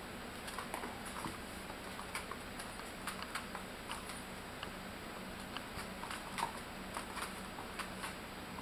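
Young puppies, about four weeks old, moving about: irregular light pattering and clicking of small paws and claws, with a few brief high squeaks.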